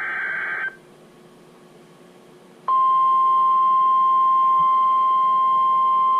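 The last burst of a NOAA Weather Radio SAME alert header, a buzzy digital data squawk under a second long, ends just under a second in. Then comes about two seconds of quiet hiss. Then the weather radio's 1050 Hz warning alarm tone starts abruptly and holds steady at a single pitch, louder than the header burst; it signals that a new warning message follows.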